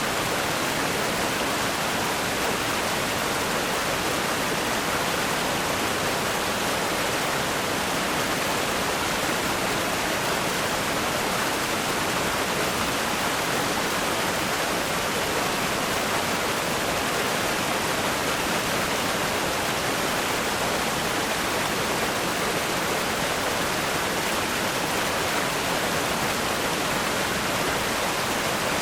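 Fast-flowing river rapids, water rushing over rocks in a steady, unbroken roar.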